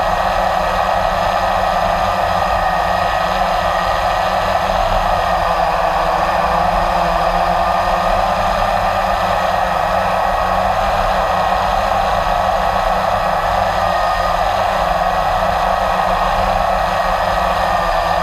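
Blade 350 QX3 quadcopter's four electric motors and propellers whirring steadily in flight, heard close up from the camera it carries.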